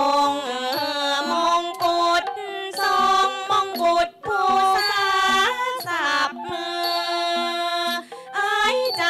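Thai classical music accompanying a lakhon phanthang dance-drama: a singer's drawn-out, sliding vocal line over sustained instrumental notes that step from pitch to pitch, with short breaks between phrases.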